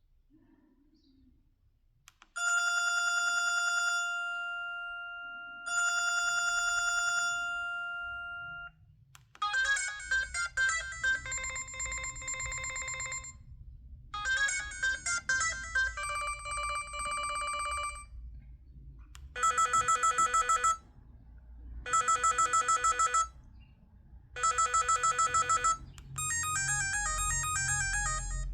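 LG MG180 mobile phone playing its built-in ringtones through its small speaker. About two seconds in it gives two long, steady electronic rings. After that a beeping multi-note melody ringtone starts, which from about twenty seconds in repeats as short phrases.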